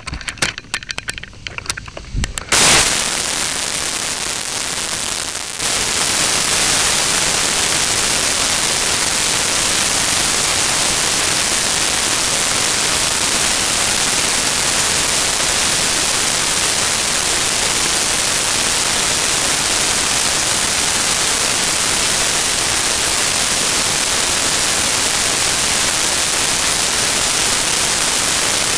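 A few clicks and knocks, then about three seconds in a hiss comes up. A little over five seconds in it jumps to a steady loud rush of airflow and propeller wash on the tiny microphone of a camera riding on an electric RC model plane in flight, with no clear motor tone.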